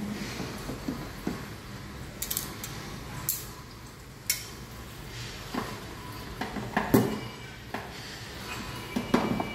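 Scattered metallic clicks and clinks of a screwdriver working the small screws on the sheet-metal cover of a Bizhub 368e laser unit. The loudest click comes about seven seconds in.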